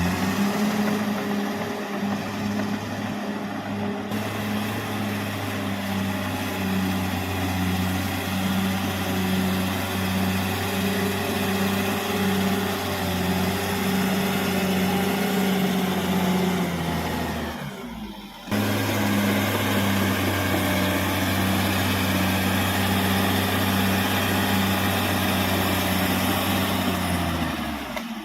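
Caterpillar D6R XL bulldozer's diesel engine running at a steady pitch. About two-thirds of the way through it drops briefly and cuts back in at once.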